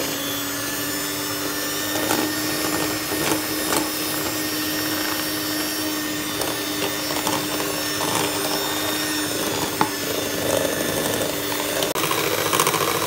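Electric hand mixer with a single beater running at a steady speed, beating thick batter in a glass bowl, with a few sharp clicks along the way.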